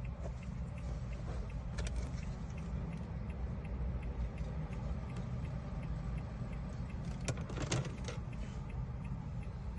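Low steady rumble with faint regular ticking, broken by short clusters of clicks and rattles about two seconds in and again around seven and a half seconds, as of car keys being handled.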